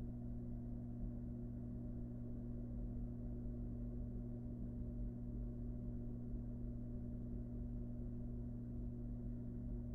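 A steady low hum with two constant tones and a faint rumble beneath, unchanging throughout. No owl calls or hissing stand out.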